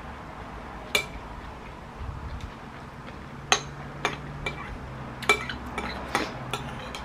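Metal spoon clinking and scraping against a bowl while food is scooped and stirred: about eight sharp clinks, one about a second in and the rest coming more often in the second half.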